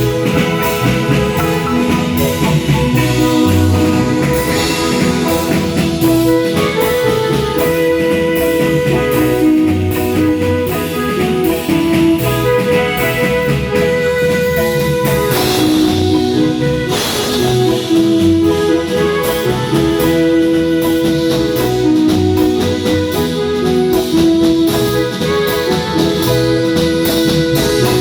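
Marimba band playing a tune, many pitched notes over drums keeping a steady beat.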